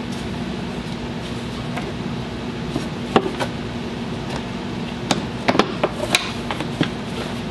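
Plastic clicks and knocks from a golf cart's air filter box as its lid is worked into place and pressed shut: one tap about three seconds in, then a quick cluster of sharp clicks near the end, over a steady background hum.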